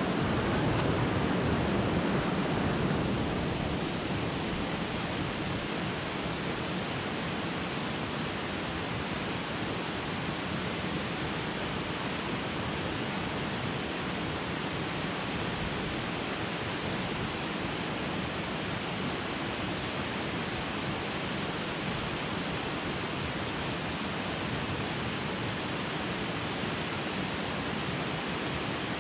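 Steady, even rushing noise with no distinct events, a little louder for the first three or four seconds and then level.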